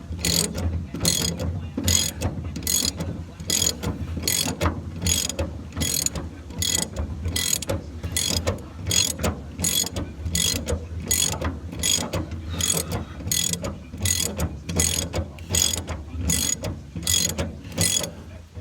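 Cordless drill motor running steadily on a truck bed bolt, with a sharp ratcheting click about twice a second; it stops abruptly at the end.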